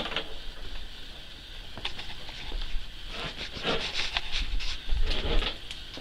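Rustling, with scattered light clicks and scuffs and a low rumble about five seconds in, over a steady hiss.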